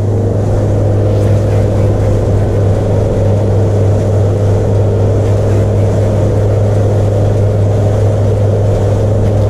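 Suzuki outboard motor running steadily under way, a constant low hum, with the rush of wind and water past the boat.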